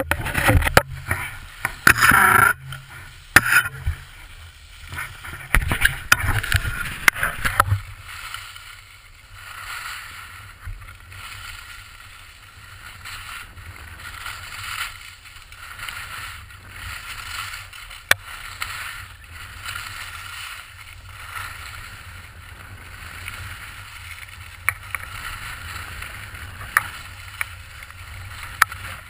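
Skis carving down a groomed piste: a scraping hiss of ski edges on snow that swells and dips with each turn, with wind buffeting the camera's microphone. The first several seconds are louder and more uneven, with low rumbling gusts.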